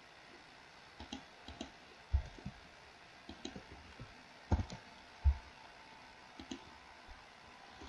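Computer mouse clicks and keyboard key presses, scattered and irregular, with three dull thumps at about two, four and a half, and five seconds in.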